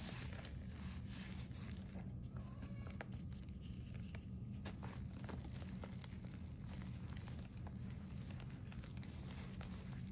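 Hands squeezing and crumbling packed, green-dyed gym chalk: a continuous soft crunching with many small crackles as the lumps break apart into powder. A steady low hum runs underneath.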